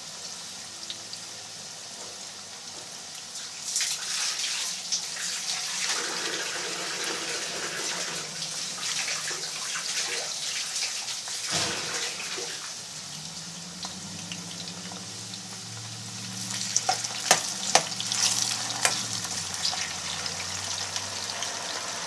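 Fresh-cut potato sticks deep-frying in hot oil in a pan: a steady sizzle with crackling bubbles. Near the end, a few sharp clicks of a metal ladle against the pan as the fries are stirred.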